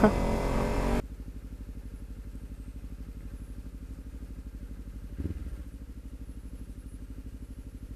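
2015 Kawasaki Ninja 300's parallel-twin engine idling with a steady, rapid low pulse while the bike sits stopped. A louder rush of riding noise cuts off abruptly about a second in, and there is a soft thump about five seconds in.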